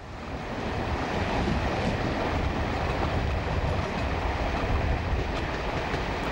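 First-generation diesel multiple unit running on the line, heard from an open window: a steady rumble of wheels on rail and running gear, with a few light clicks near the end.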